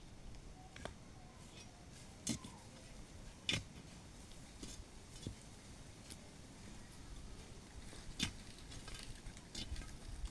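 A wooden digging stick striking and prying into garden soil: about five separate sharp knocks and scrapes a second or more apart, faint overall.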